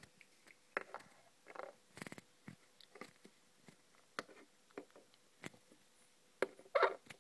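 Handling noise: scattered small clicks and knocks with a few short rustles, the loudest rustle near the end.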